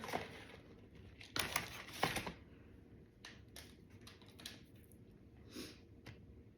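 Food packaging being handled close to the microphone: two louder rustling crinkles about a second and a half and two seconds in, then scattered small clicks and rustles.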